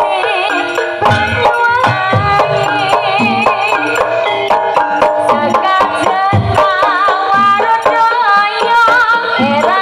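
Live Javanese sampak music: hand-drum (kendang) strokes keeping a steady beat under a dense, wavering melodic line.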